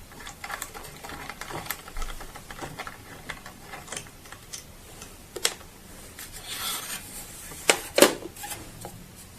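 Handling noise from a small printer as its old paper roll is taken out: irregular clicks and knocks of plastic parts, sharpest about halfway through and near the end, with a short rustle of paper.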